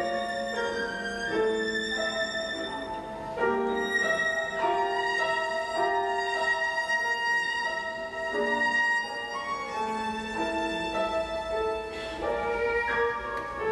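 Violin playing a slow melody in long held notes with vibrato, accompanied by piano.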